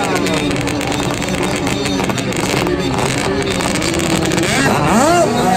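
Jet ski engines running hard, their pitch sliding down and holding steady, then a quick rise in revs near the end.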